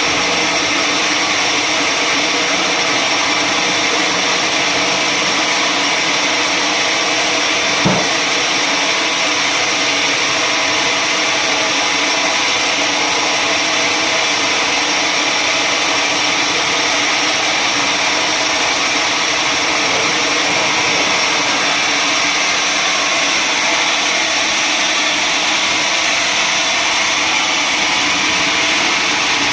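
Sawmill saw running steadily: a loud, even machine whine with a hiss, with one short knock about eight seconds in.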